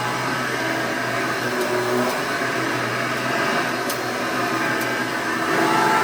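Hoover Elite II Total System Performance 430 upright vacuum cleaner running steadily, its motor giving an even hum.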